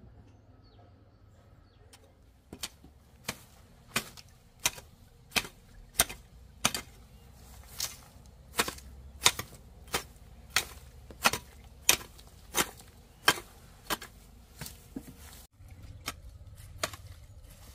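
Rhythmic sharp chopping strikes of a hand tool, about three every two seconds. They begin a couple of seconds in and thin out near the end.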